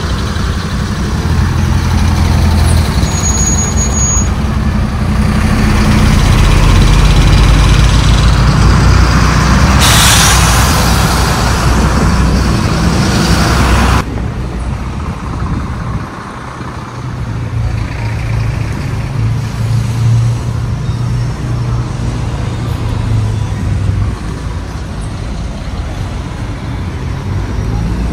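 Coach engine running, heard from inside the cabin as a steady low drone. About ten seconds in, a loud hiss lasts some four seconds and stops abruptly, after which the engine drone is lighter.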